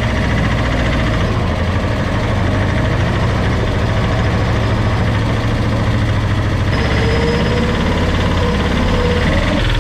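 Engine of a small red open-cab farm utility vehicle running steadily with a low, even hum as it is driven.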